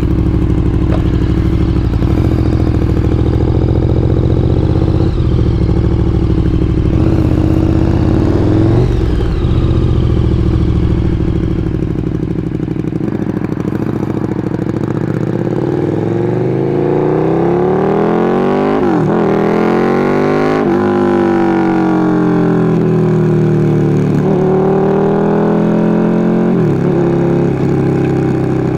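KTM 1290 R Super Duke's V-twin engine through a LeoVince LV-10 slip-on exhaust. It runs at a steady low pitch for about the first half. After that it accelerates, the pitch climbing and then dropping sharply at each gear change, several times.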